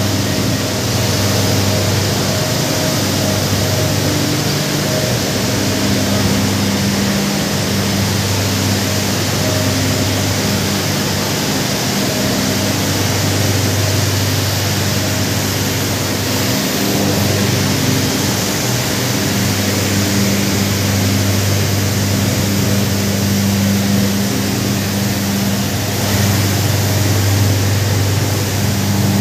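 Loud, steady din of heavy industrial machinery running in a factory hall: a constant low hum under a dense wash of mechanical noise, with no breaks.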